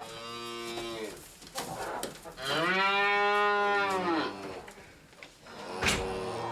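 Cows mooing in a barn: a moo at the start, then a louder, longer moo about two and a half seconds in that rises and falls in pitch, and another beginning near the end. A sharp knock comes just as that last moo starts.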